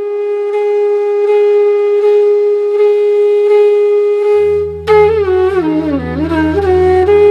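Background music on a flute: one long held note, then a low steady drone comes in and the flute moves into a melody with bending, sliding notes.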